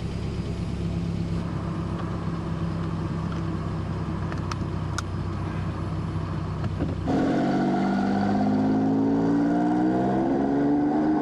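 A car engine idling steadily, heard from inside the cabin, with two light clicks near the middle as a seat belt is fastened. About seven seconds in, a Mercedes-Benz G-Class SUV's engine note rises steadily as it accelerates away.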